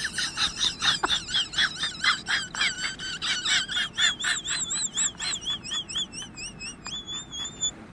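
Fast rhythmic chomping and smacking, about four to five a second, as a dog gobbles cereal and milk, with a high warbling whistle-like tone over it that steadies near the end.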